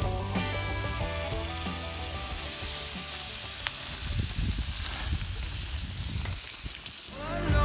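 Burger patties and sausages sizzling on a portable grill: a steady hiss with no tune in it, after a song fades out in the first second or so.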